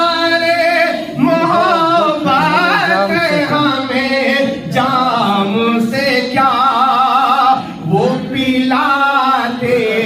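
A man singing a naat solo and unaccompanied into a microphone, drawing out long held notes that waver in pitch, with brief pauses for breath.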